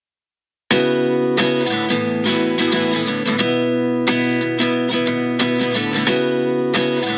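Background music: after a moment of silence, a song's intro starts suddenly under a second in, with strummed acoustic guitar in a steady rhythm.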